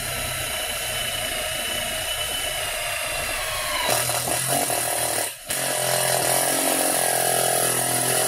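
Makita 12V cordless impact driver driving a self-drilling screw into sheet metal. The motor runs steadily with its pitch slowly sagging under load, changes about four seconds in, pauses briefly after five seconds, then runs loaded again. The battery is nearly flat, so the tool runs a little slow.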